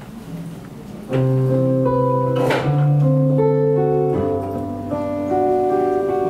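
Acoustic guitar starting to play about a second in, a song's opening notes ringing and overlapping.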